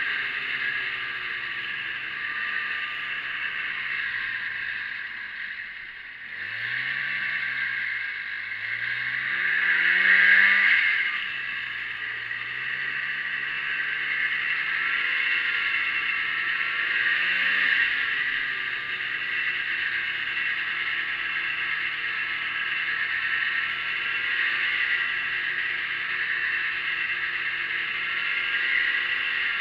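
1987 Arctic Cat Cougar snowmobile's two-stroke engine running under way, heard from the rider's seat over a steady hiss. About six seconds in it eases off, then revs up twice in a rising whine, loudest around ten seconds, before dropping back to a steady cruising pitch with a brief rise a little later.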